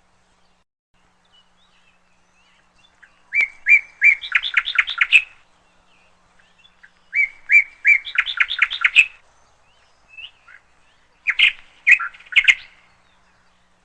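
Bird chirping: a short phrase of a few notes running into a quick trill, repeated three times at gaps of about four seconds.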